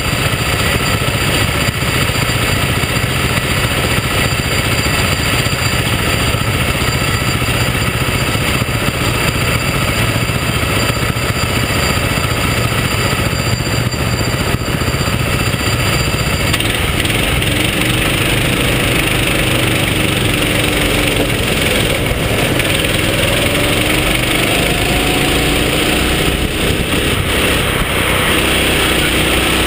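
Go-kart engine heard up close from the kart itself, running steadily at low revs for roughly the first half, then revving up and down in rising and falling sweeps as the kart accelerates and slows through the corners.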